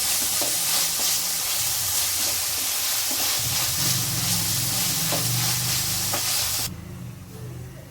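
Chopped onions sizzling in hot oil in a pan, with light scrapes of stirring. The sizzle cuts off suddenly near the end, leaving a faint low hum.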